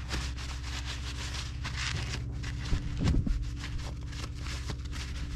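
A steady low machine hum with scattered small clicks and knocks over it, and a louder knock about three seconds in.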